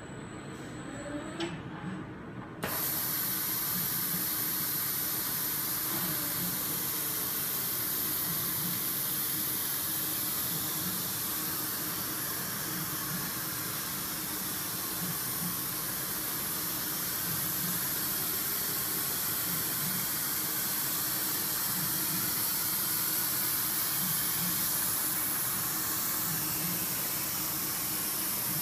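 Compressed air hissing steadily and loudly from the suction-cup gripper of an ABB industrial robot, switching on abruptly about two and a half seconds in, as the vacuum holds a car window glass. Faint rising and falling whines of the robot's motors sound early on and around six seconds in.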